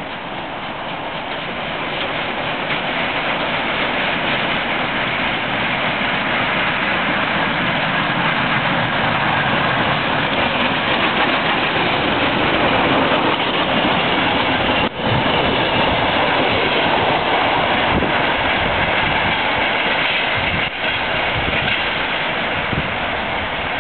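Steam-hauled passenger train passing close by: a steady heavy rumble and rush of the locomotive and coaches running on the rails, building over the first few seconds and staying loud.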